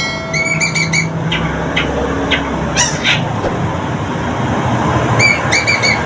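Caged long-tailed shrike (local cendet), a bird just beginning to sing, chattering: a quick run of about four scratchy repeated chirps about half a second in and again near the end, with sharp clicking calls between. A low hum and rumble sit underneath.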